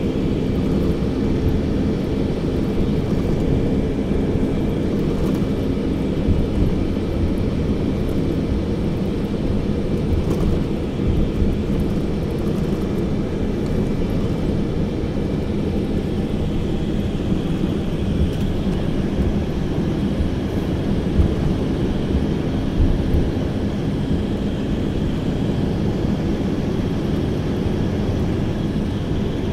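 Steady engine and road drone heard from inside a moving vehicle's cabin, a low rumble with a constant hum.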